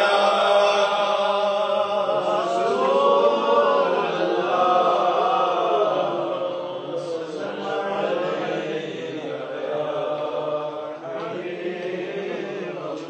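A man chanting a naat unaccompanied into a microphone, a slow sung line with long held notes; it grows softer about halfway through.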